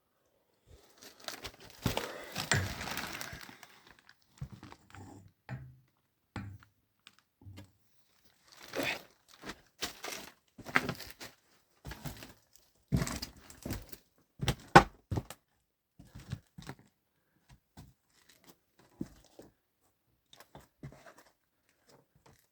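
Irregular rustling and crinkling, with scattered sharp clicks and knocks. A longer rustle comes near the start, and one sharp knock about two-thirds of the way through is the loudest sound.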